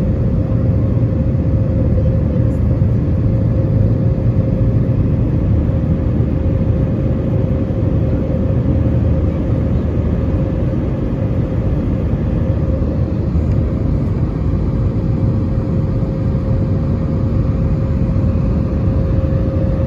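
Airliner's underwing turbofan jet engines heard from inside the passenger cabin during the climb after takeoff: a steady deep rumble with one constant tone held above it.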